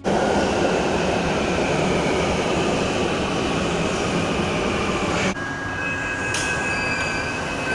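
Mumbai Metro train in motion: a steady rushing rumble of wheels and running gear. About five seconds in it cuts to quieter running with a steady high-pitched whine.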